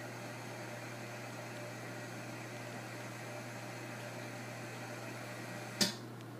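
Steady fan-like hiss over a constant low hum, as of a machine's blower running; near the end a single sharp click, after which the hiss drops slightly.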